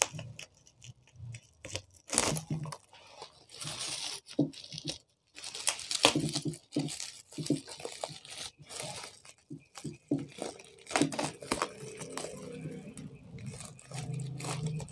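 Black plastic bubble-wrap packaging being cut with scissors and torn open by hand. It crinkles and rips in irregular bursts.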